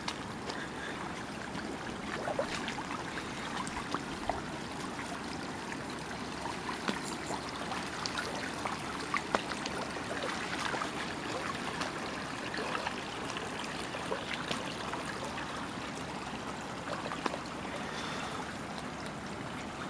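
Shallow, muddy creek water trickling and running over mud and debris, a steady rushing with small scattered clicks and splashes throughout.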